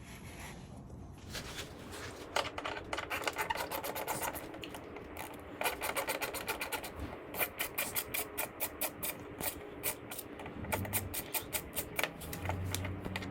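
Hand ratchet clicking in quick runs of rapid ticks, backing T25 Torx bolts out of a motorcycle's lower fairing.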